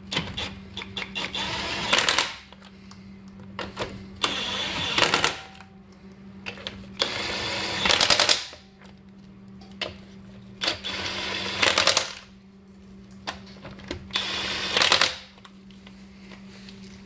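Impact wrench on its lowest setting running the wheel's lug nuts on: five bursts of about a second each, a few seconds apart, each ending in rapid hammering as the nut seats. A faint steady low hum runs underneath.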